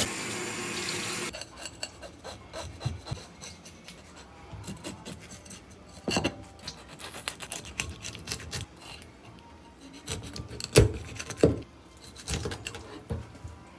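Tap water running briefly at the start, then a knife blade scraping the scales off a barracuda, a quick rasping run of small scrapes. Near the end come a few heavier knocks as the knife cuts in behind the fish's head against the cutting board.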